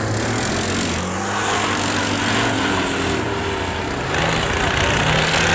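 ATV (quad bike) engine running under load as it drives through deep mud and up a bank, getting louder about four seconds in.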